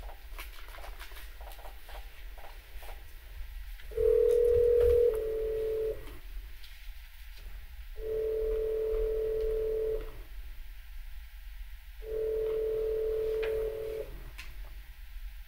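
Telephone ringback tone on an outgoing call: three steady two-second rings about two seconds apart, starting about four seconds in, with the first ring the loudest. The rings mean the called phone is ringing and has not yet been answered. Faint clicks come before the first ring.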